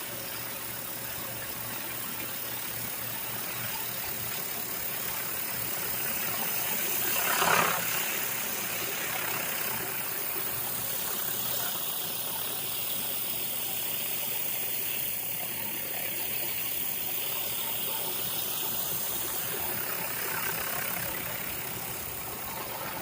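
A commercial pressure washer's engine runs steadily under the hiss of a rotary surface cleaner spraying concrete. About seven seconds in, the spray briefly swells into a louder rush.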